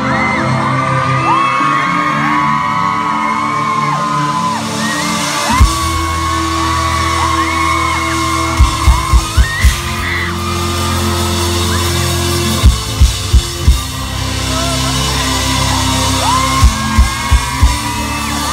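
Rock-concert intro: a droning backing track over the PA with a crowd screaming and whooping, and the drummer landing heavy drum hits, one about five seconds in and then short groups of four or five, every four seconds or so.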